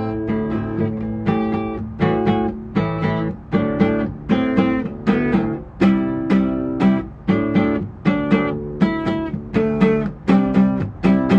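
Solo acoustic guitar, chords strummed and picked in a steady rhythm of about two strokes a second, each ringing out before the next.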